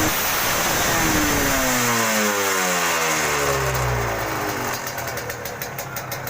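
Yamaha TZM 150's single-cylinder two-stroke engine with its revs falling steadily as the throttle closes, over a heavy rush of wind noise. Near the end the engine settles to a low, pulsing beat.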